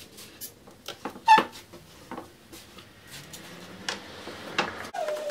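Hinged pine leg frames knocking and clattering against a plywood board as they are handled and set upright, with one sharper knock about a second in.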